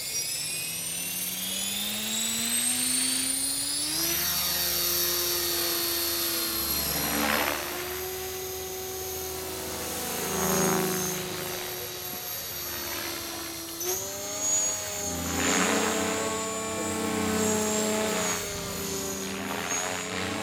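Align T-Rex 500 electric RC helicopter spooling up: the motor and gear whine rises in pitch over the first four seconds, then holds steady at flying head speed. The rotor blade noise swells and fades several times as it flies.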